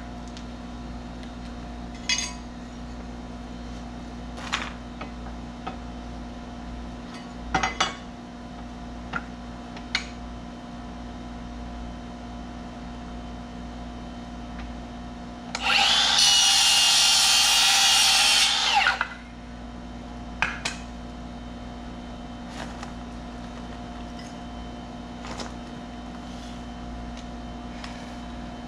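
Circular saw cutting across a white door-jamb board in one steady cut of about three and a half seconds, just past the middle, then stopping. Scattered clicks and knocks from handling the tools and board come before and after.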